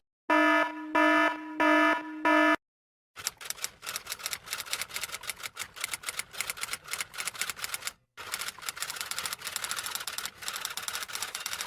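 Four short electronic beeps, then a mechanical typewriter typing in a rapid stream of key clicks with a brief pause partway through.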